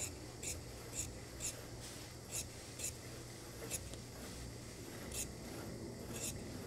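Large tailor's shears cutting through coat fabric, a crisp snip with each closing of the blades. The snips come about twice a second at first, then more spaced out, as the excess width is cut away along the seam to take the coat in.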